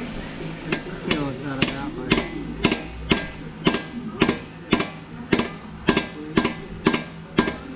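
Hammer tapping a block heater into a Kubota BX tractor's diesel engine block: an even series of sharp metal-on-metal strikes, about two a second. The taps are a check by ear that the heater is seated; to the workers it still sounds like metal on metal.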